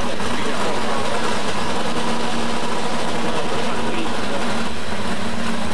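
Engine of a four-wheel-drive pulling truck, an older Ford pickup, running loud and steady as the truck creeps forward hooked to the pulling sled.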